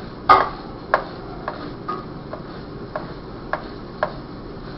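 Paintbrush dabbing paint onto a hard plastic mask: a series of light taps about every half second, the first the loudest.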